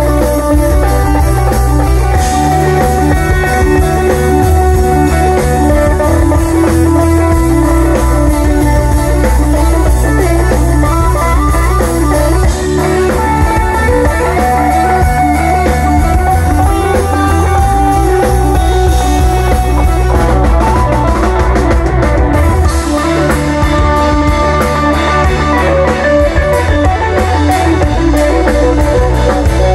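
Live rock band playing: electric guitar lines over bass guitar and drum kit, loud and steady. The drums get busier with a run of quick cymbal hits about two-thirds of the way through.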